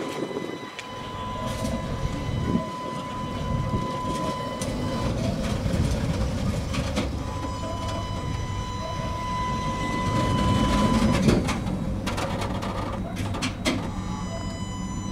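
Tatra T3A tram running past over worn track, its wheels clattering and knocking on the rails. A steady high whine comes and goes, and the sound grows loudest as the car goes by.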